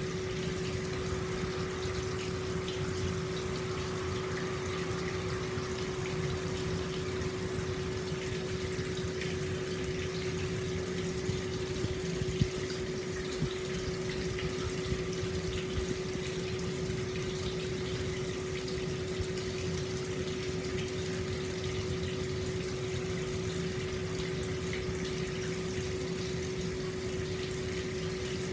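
Hot spring water pouring steadily into an open-air stone bath, a continuous flowing rush with a steady low hum underneath and a few faint drips or splashes near the middle.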